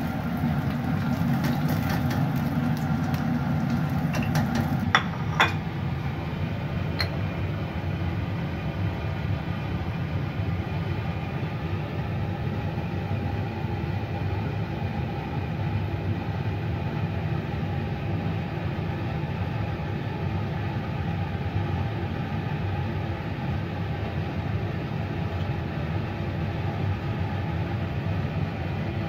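A steady low machine hum from a running kitchen appliance. Fine crackling, like oil sizzling in the wok, is heard over it for the first five seconds, and it stops after two sharp clinks about five seconds in.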